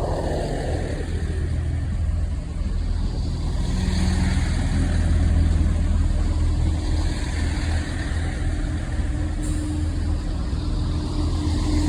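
Diesel multiple-unit train engines running at the platform: a steady low rumble, with a steady hum that comes up about nine seconds in.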